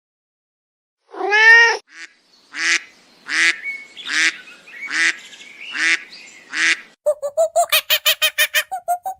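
A cat's last meow, then a goose honking five times at a steady pace. Near the end a fast run of short, rapid calls begins.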